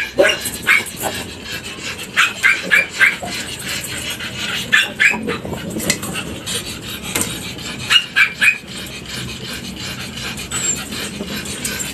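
Two-month-old Shih Tzu puppies yelping in short, high-pitched calls that come in quick runs of three or four, several times over.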